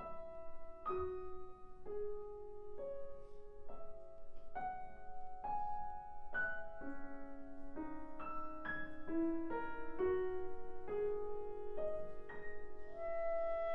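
Grand piano playing a slow passage of single notes, about one a second, each left to ring. Near the end a clarinet comes in with a long held note.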